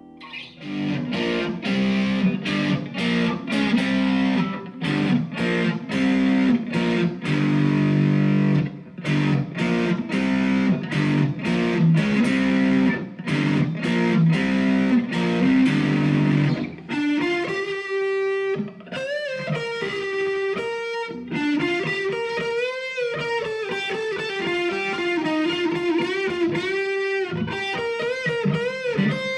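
Squier Classic Vibe 50s Stratocaster electric guitar played through distortion. For about the first seventeen seconds it plays a stop-start rhythm riff of short, choppy chords, then a single-note lead line with string bends and vibrato.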